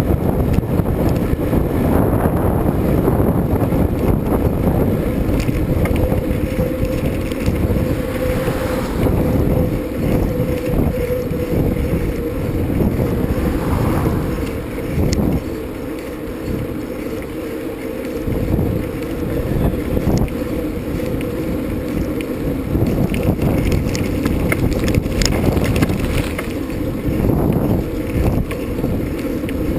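Wind buffeting the microphone over a low rumble from riding, with a steady hum running underneath; the rumble eases briefly around the middle.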